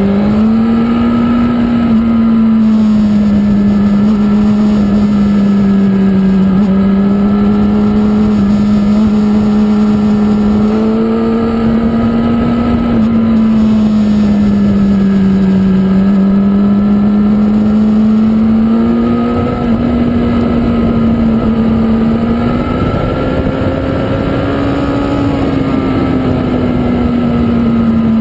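Motorcycle engine running hard at high revs, heard from the bike itself at track speed, its pitch drifting slowly up and down through the corners over a steady rushing noise.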